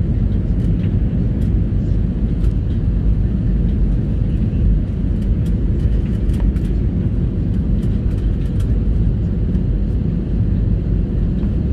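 Steady jet airliner cabin noise on the descent: an even rumble of engines and airflow, with a faint steady hum underneath and a few light ticks.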